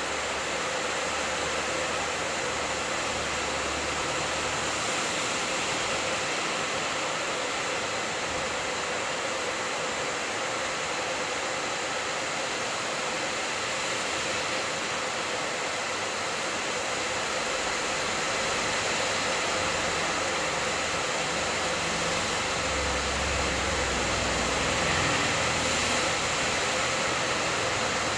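Heavy rain falling steadily in a dense, even hiss, growing a little louder in the second half.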